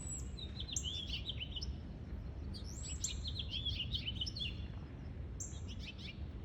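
Small songbirds chirping in the trees: three quick runs of high, rapid chirps, near the start, around the middle and near the end, over a steady low background rumble.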